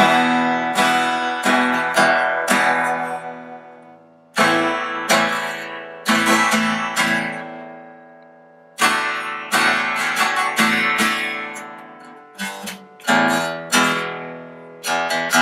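Fender FA-125CE dreadnought acoustic guitar strummed hard, in groups of chords that ring and fade before the next group starts. The owner puts a little string buzz under hard strumming down to a few slightly high frets.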